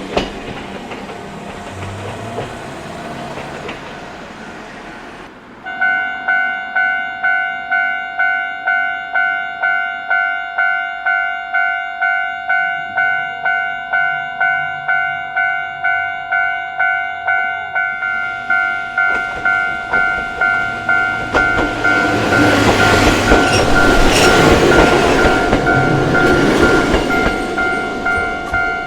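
Japanese level-crossing alarm on the Choshi Electric Railway, starting about six seconds in: an electronic bell striking about one and a half times a second. From about two-thirds of the way through, a train approaches and runs over the crossing, its wheels clacking on the rail joints, loudest near the end. In the first few seconds the noise of a train fades away.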